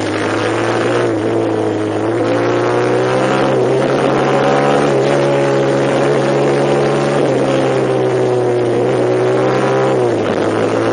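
Vehicle engine running steadily under way, its pitch rising about two seconds in, holding, then dropping near the end as the engine speed eases off.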